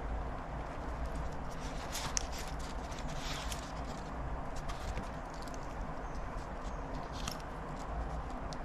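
Steady background noise with a low hum, broken by scattered light clicks and taps.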